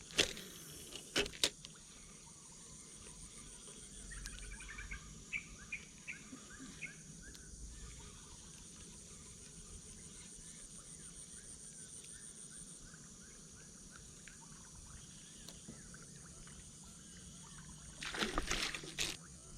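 Outdoor swamp ambience: a steady high insect drone with a run of repeated chirps from birds or frogs through the middle. A few sharp clicks come near the start, and a louder rustling burst lasts about a second and a half near the end.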